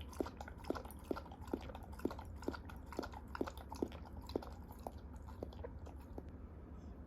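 A dog chewing food with regular chomps, about two a second, that thin out and stop about six seconds in.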